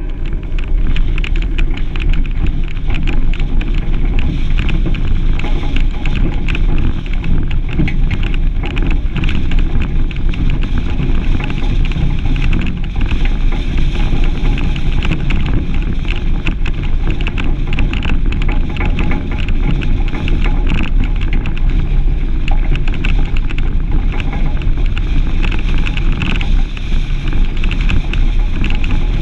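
Steady wind buffeting on the microphone of a camera mounted outside a Suzuki Grand Vitara driving a gravel track. Under it is the low rumble of the vehicle and the rattle of its tyres on the stones.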